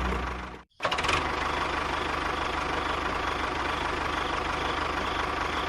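A motor running steadily with a faint high whine, after the sound cuts out briefly just under a second in.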